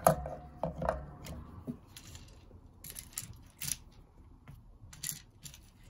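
Small metal guitar hardware (screws, springs and washers) clicking and clinking against each other and a clear plastic tub as fingers pick through them, in a scatter of sharp separate clicks. A handling knock with brief ringing comes right at the start.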